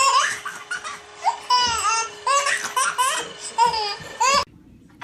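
A baby laughing hard in a quick run of short, high-pitched giggles and squeals that cut off abruptly near the end.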